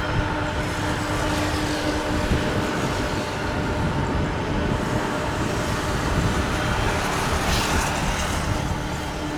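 Steady rumbling noise of a jet airliner's engines, with a steady low tone running through it and a brief rise in the hiss about seven seconds in.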